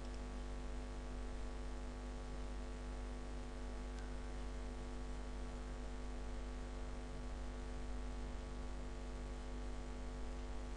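Steady electrical mains hum with many overtones, picked up by the recording microphone, with a single faint click about four seconds in.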